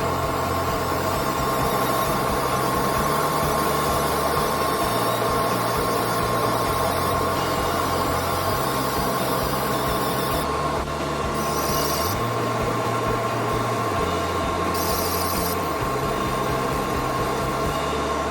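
Background music with a bass line that steps to a new note every second or two, over a steady high-pitched whine.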